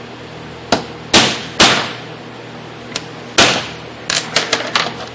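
Hammer striking a metal punch to seat a pin retainer over the pin of a hydraulic seal container: four sharp, ringing blows a second or so apart, then a quick run of lighter taps near the end.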